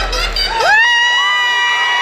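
Fight crowd cheering, with several spectators letting out long, high-pitched held shouts that sweep up in pitch about half a second in. The bass-heavy arena music fades out as the shouts begin.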